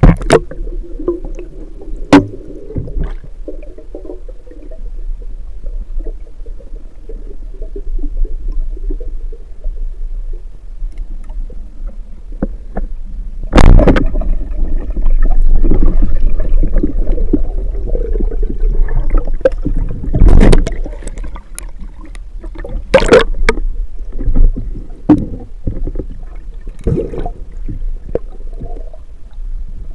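Muffled underwater sound heard through a submerged camera: a steady low rumble of moving water, broken by several sharp knocks, the loudest a little before halfway through.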